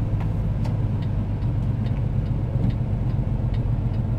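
Steady low engine and road drone inside a semi-truck's cab at highway speed, with a light, regular ticking about two times a second.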